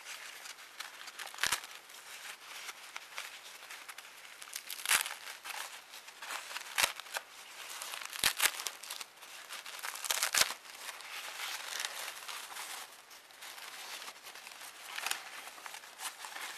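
Gift wrapping being crinkled and pulled open by hand around a soft package: a continuous rustle broken by several sharp crackles.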